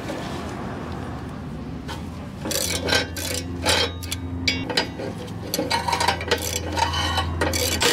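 Socket ratchet clicking in quick runs as the 12 mm exhaust flange bolts are loosened, starting a couple of seconds in and again near the end, over a steady low hum.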